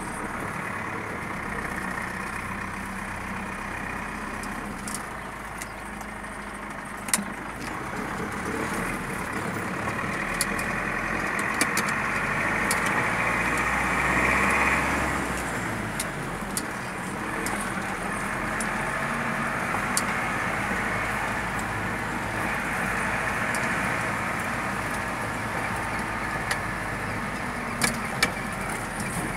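Car engine running and tyre noise on a sandy dirt street, heard from inside the cab, with a few sharp knocks and rattles from bumps. The engine swells for a few seconds around the middle, then drops back.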